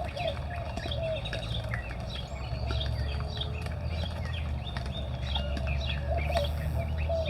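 Several birds chirping and calling together: many quick high chirps over a lower call that repeats every second or so. A low steady rumble runs underneath.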